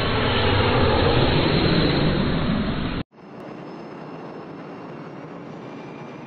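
Jet aircraft engine noise: a loud, dense jet sound swells slightly and then cuts off suddenly about halfway through, giving way to a quieter, steady jet engine whine with a faint high tone.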